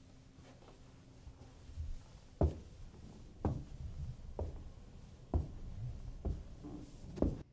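Slow, heavy footsteps going down carpeted stairs: six thuds about a second apart, starting about two seconds in.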